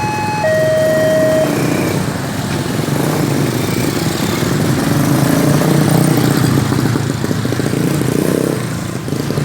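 Railway level-crossing warning alarm beeping in two alternating tones, stopping about a second and a half in. Then a steady rumble of passing vehicle traffic takes over, swelling in the middle.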